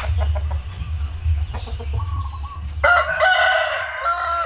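Ayam kampung (Indonesian village) rooster crowing: one long, loud crow starting about three seconds in, after a few short calls, over a steady low rumble.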